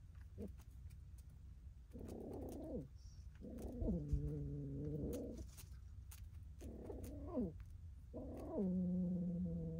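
Cat yowling in the mating season: four drawn-out, low calls with a downward slide in pitch, the longest two each lasting about two seconds.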